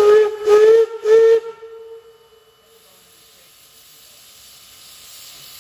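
Wiscasset, Waterville & Farmington Railway No. 9 steam locomotive's whistle sounding three short blasts, each rising slightly in pitch. This is the standard signal for backing up. Afterwards steam hisses from the open cylinder cocks, loud at first and then fading to a softer steady hiss.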